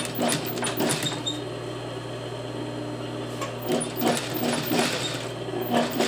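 Industrial single-needle sewing machine topstitching fabric: its motor hums steadily while the needle runs in two short bursts of even stitching, with a pause of hum alone in the middle.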